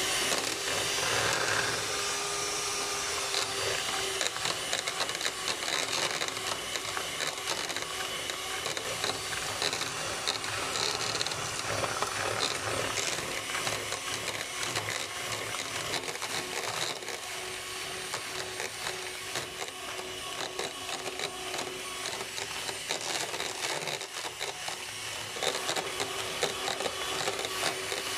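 Electric hand mixer running steadily, its beaters churning butter and sugar in a bowl into a creamy mixture.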